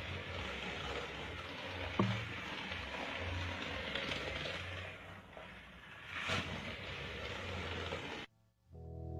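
Small battery-powered toy car whirring and rattling as it runs around a plastic toy track, swelling louder twice as it passes close; a single click about two seconds in. It cuts off suddenly near the end, followed by a steady musical tone.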